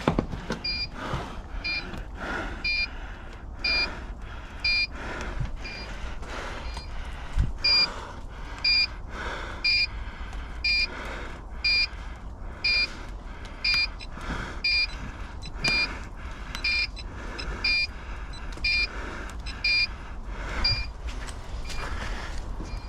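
Electronic beeper sounding short, high two-pitch beeps, about one a second, steady and regular.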